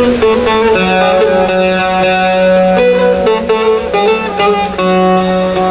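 Plucked string instrument playing an instrumental melody: single picked notes moving up and down over a held low note.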